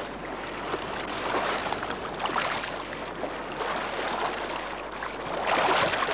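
Sea water splashing and sloshing as a sea otter swims and dives at the surface, coming in uneven surges every second or two.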